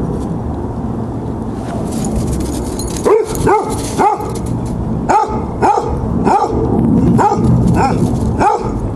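Hound barking repeatedly up toward the porch: about ten short barks in quick runs, roughly two a second, starting about three seconds in.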